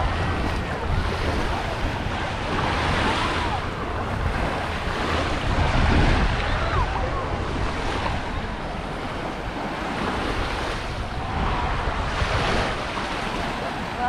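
Small waves washing onto a sandy shore, swelling every few seconds, with wind rumbling on the microphone and faint distant voices of people on the beach.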